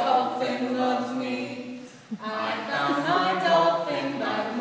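Several voices singing together without instruments, with a short break about two seconds in.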